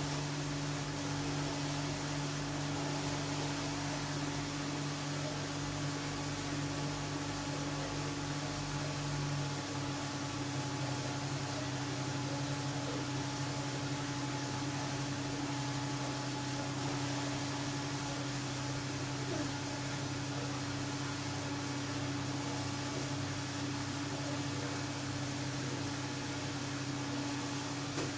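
Steady electric hum of an underwater treadmill hydrotherapy tank running, its motor and pump giving a low drone with two steady tones over a hiss. The lower tone drops slightly in pitch about ten seconds in.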